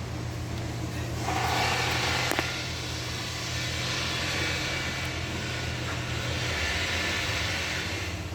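Toyota RAV4 Hybrid running with a steady low hum. About a second in, a rushing, hissing noise rises over the hum and holds.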